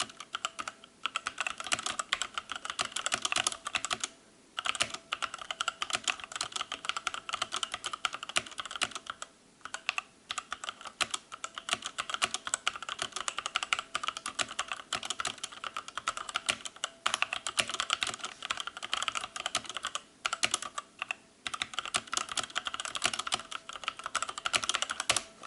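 Mechanical keyboard being typed on fast and continuously, a dense run of key clicks with a few short pauses.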